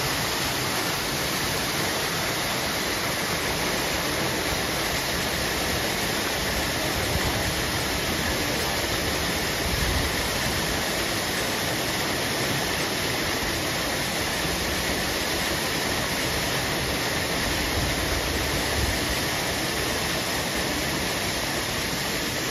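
Steady rush of running water, even and unbroken throughout.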